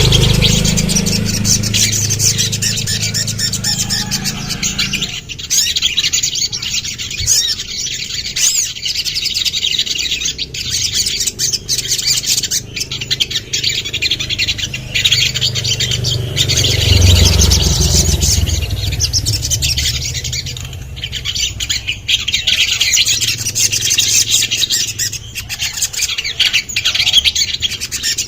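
A sogon, a small sunbird, singing in fast, high chirps and rapid trills that run almost without a break. A low rumble lies under the song in the first few seconds and again briefly about two-thirds of the way through.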